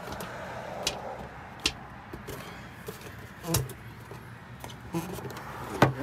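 Scattered clicks and knocks of a plastic engine cover being worked loose and lifted off a Yamaha WaveRunner's engine, the loudest knock about halfway through.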